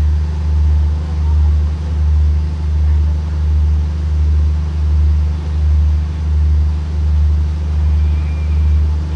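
Diesel engine of a train standing at the platform, idling with a loud, steady low drone that swells and fades in a slow beat about once every three-quarters of a second.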